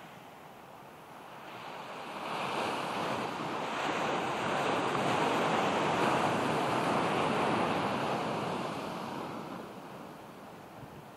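Ocean surf: a wave breaks and washes up the sand, swelling from about two seconds in to a peak in the middle, then fading away.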